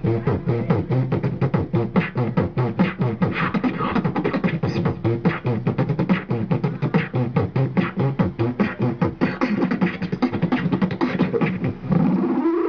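Man beatboxing into a handheld microphone: a fast, steady beat of mouth-made kick and snare hits, about five a second, over a low hummed line, breaking off just before the end.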